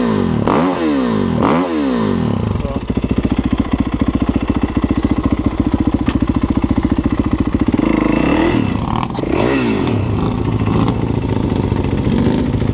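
Kawasaki dirt bike's engine blipped three times in quick succession, then idling with an even chug, revved twice more about eight and a half and nine and a half seconds in, and settling back to idle.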